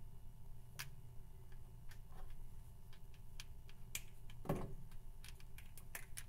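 Scattered, irregular light clicks and taps of liquid-chalk markers on a blackboard and their caps being handled, over a faint steady hum. One louder, duller bump comes about four and a half seconds in.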